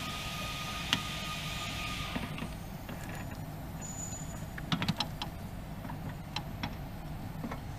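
Light clicks and taps of a brake hose and its fittings being handled and fitted at the wheel arch: one click about a second in, a quick cluster just before the middle, a few more later. A steady hum with a faint high tone runs underneath and fades about two seconds in.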